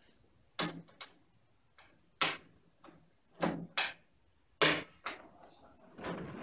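A long metal pole knocking against the frame of a tall sliding lecture-hall board, six sharp knocks a half-second to a second apart. Near the end the board panel starts to rumble as it slides in its track.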